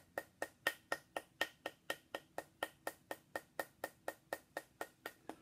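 A metal rod tapping a small stone held in the hand, in quick steady strikes of about four to five a second, each a sharp click with a brief ring.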